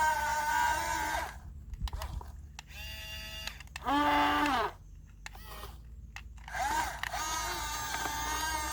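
Small electric motors of a remote-control excavator whining as it works. The whine stops about a second in, gives one short whir that rises and falls in pitch about four seconds in, and starts up again near the end.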